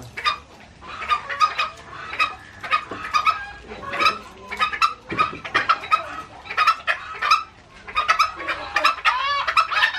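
Several junglefowl and roosters clucking: rapid, repeated short clucks throughout, with one rising-and-falling squawk near the end.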